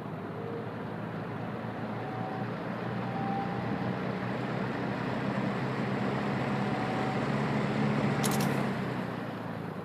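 1974 Kmart P-23 box fan running on its low speed: an even rush of air over a steady low motor hum, slowly getting louder. A short click sounds about eight seconds in.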